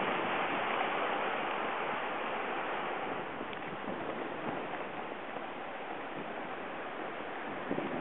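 Steady rushing of fast-flowing river water, easing off gradually.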